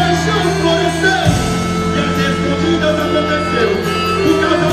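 Music for a quadrilha junina dance performance: a steady bass line and a melody of held notes, the bass changing pitch about a second in.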